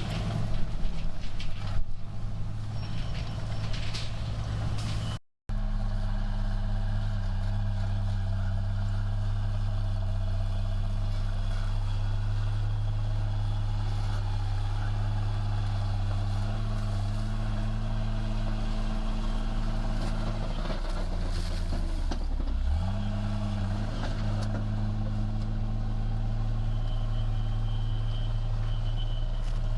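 Heavy diesel earthmoving machine, such as a bulldozer, with its engine running steadily. Its pitch sags under load for a moment about 21 seconds in, then recovers. There is a brief break about five seconds in, where the sound cuts between two takes.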